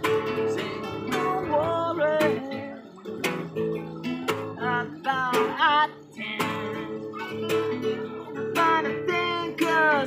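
Two acoustic guitars strummed and picked together, with a man's voice singing over them in gliding, wavering phrases.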